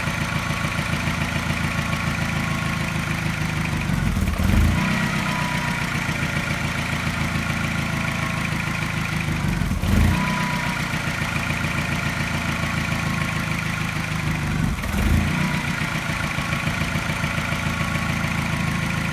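Mini N12 1.6-litre four-cylinder petrol engine idling steadily, swelling louder about every five seconds, three times. The owner hears a regular tap that seems to coincide with a mild misfire, making the idle sound as if it is pulsing.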